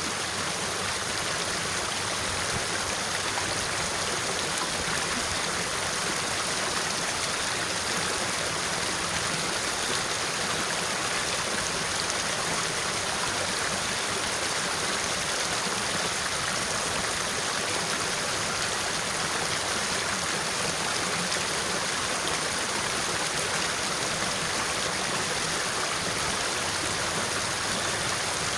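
Shallow water flowing fast along a narrow ditch: a steady, unbroken rushing babble.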